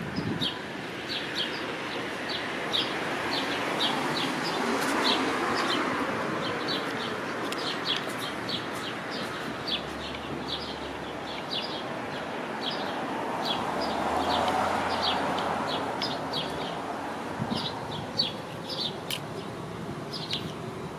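Steady outdoor chirping: short high chirps, a few a second, over the rush of passing traffic that swells twice.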